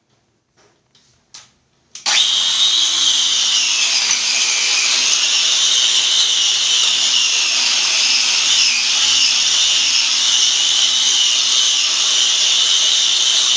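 A handheld electric grinder-polisher starts about two seconds in and runs steadily, its pad rubbing on the marble with a high whine.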